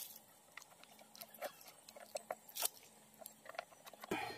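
Scattered light metallic clicks and ticks from a screwdriver working at the timing chain cap screws on a Yamaha Mio Sporty scooter engine, with one sharper click a little past halfway.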